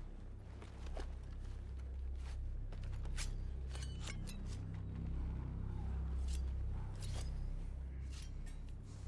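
A low, steady rumble with scattered short clicks and scrapes of soldiers' gear and rifles as they creep forward.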